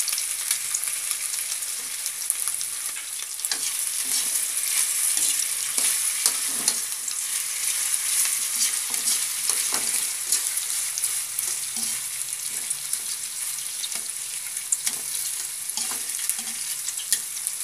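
Pork tocino sizzling and frying in oil in an aluminium wok, a steady hiss, with scattered clicks and scrapes of metal tongs against the pan as the pieces are turned. The meat is nearly done over a lowered flame.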